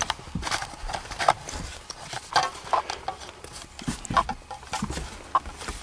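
Scattered, irregular light knocks, taps and scuffs of a person moving about and handling things in a cramped attic, with no steady rhythm.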